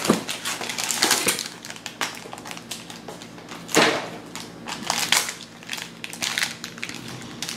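Plastic wrapping being torn and crinkled off a Lego base plate, in irregular bursts of crackling, loudest about four seconds in.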